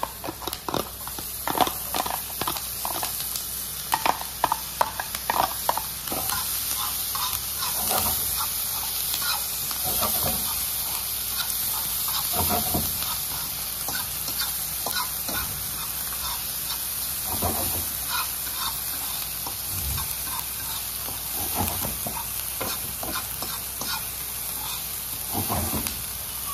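Chopped onion and green pepper sizzling in butter in a cast-iron skillet, with a metal fork scraping and clicking against the pan as it stirs. The fork clicks come thick and fast for the first six seconds, then only now and then over the steady sizzle.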